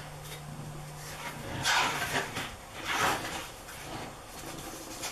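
Pages of a paperback picture book being opened and turned, with two short rustling sweeps about two and three seconds in. A low steady hum runs underneath for the first second and a half, then stops.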